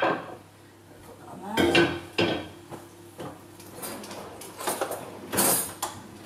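Kitchenware clattering as a baking dish of roasted vegetables is set down and handled on a kitchen worktop: several separate knocks and clinks, some with a short ring, about a second apart.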